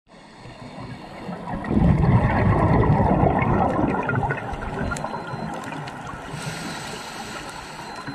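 Underwater sound of a scuba diver's exhaled bubbles from the regulator: a loud gurgling rush of bubbles lasting about three seconds, starting near two seconds in, then a lower steady wash with a faint hiss near the end.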